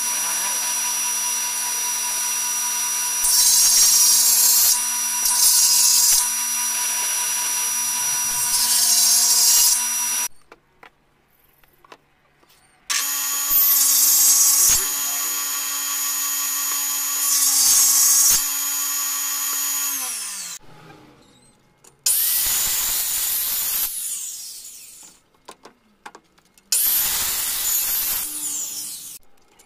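A table saw running steadily, growing louder and harsher during each of about five cuts through teak beams, switched off and winding down about ten seconds in and again about twenty seconds in. Near the end a handheld circular saw cuts slots into the end of a teak beam in two runs, winding down after each.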